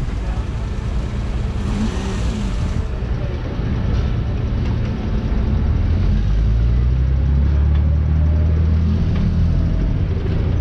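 Engine of a jangar, a motorised vehicle ferry: a steady low drone that grows louder and fuller about six seconds in.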